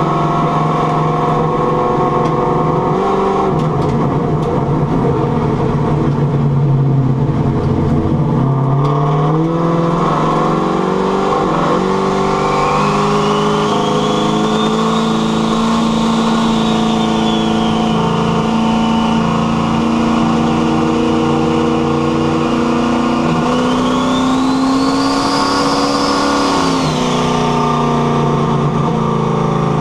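Carbureted engine with a rear-mounted turbocharger running hard under boost, its pitch dipping and climbing again about seven seconds in. Twice in the second half a high turbo whistle rises and falls as boost builds and drops. It pulls to the top without misfiring, though the owner says the carb still needs leaning out.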